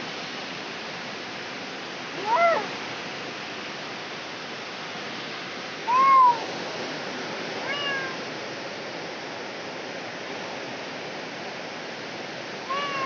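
A cat in labour meowing four times, short arching calls with the second and loudest about six seconds in, over a steady hiss.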